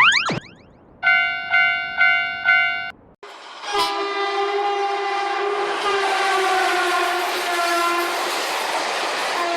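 A quick falling sweep, then four evenly spaced bell-like dings, about two a second. About three seconds in, a train horn sounds a long, steady chord of several tones, with a rush of passing-train noise building beneath it.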